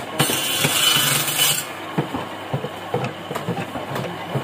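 Bones being cut with a simple hand-operated bone cutter on a wooden table: irregular clicks, cracks and knocks of the tool and bone against the board. A rough hiss runs through the first second and a half.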